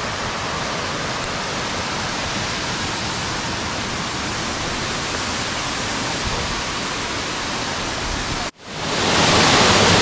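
Baker's Falls waterfall: a steady rush of falling water. About eight and a half seconds in it drops out for an instant, then comes back louder and brighter.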